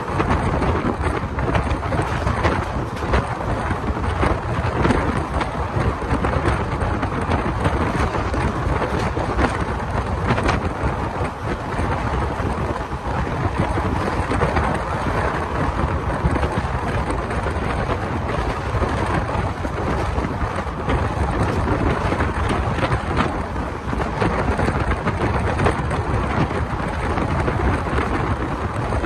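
Wind buffeting a microphone held out of a moving passenger train's window, over the steady rumble of the train running on the track.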